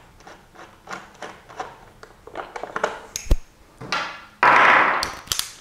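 Small clicks and taps of fasteners being started by hand into a motorcycle's plastic tail assembly, with a sharp knock about three seconds in. Near the end comes a louder rasping noise lasting about a second.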